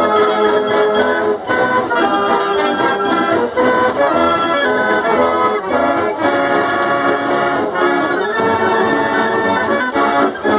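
A 98-key Chiappa fairground organ playing a tune, with pipes sounding the melody and harmony over a regular beat from its drums.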